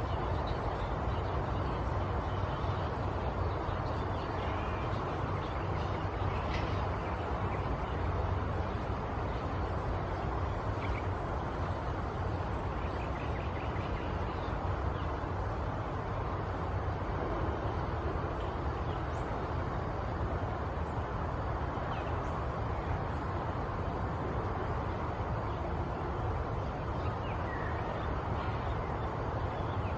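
Steady outdoor background noise with a low rumble, and faint, scattered calls of distant birds.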